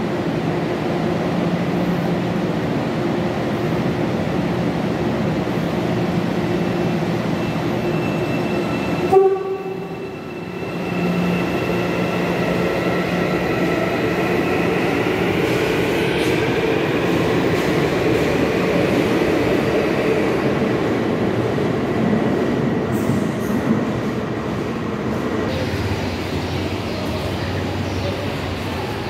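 Hyundai Rotem Series 2000 electric multiple unit: first standing at the platform with a steady electrical hum, then, after a sudden cut about nine seconds in, pulling away, its IGBT-VVVF traction inverter giving a whine of several rising tones that fades as the train leaves. Near the end a lower steady hum takes over.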